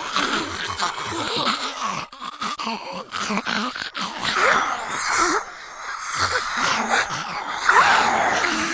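Zombie voice sound effects: moaning and groaning vocalisations in short, uneven phrases, with a brief lull about five and a half seconds in.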